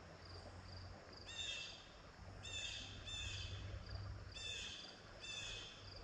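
Faint bird calls, a short call of several stacked high notes repeated about once a second, over a low steady rumble.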